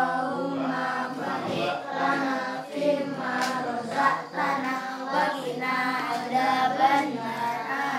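A group of children's voices chanting together in unison, a sung recitation held at a steady pace, typical of a prayer said before a shared meal.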